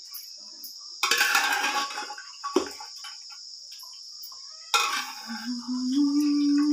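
Metal spoon scraping and knocking as cooked greens are scooped out of a pressure cooker onto a stone grinding slab: two noisy scrapes, one about a second in and one near the end, with a sharp knock between them. A low held tone starts near the end, over a steady high chirring of insects.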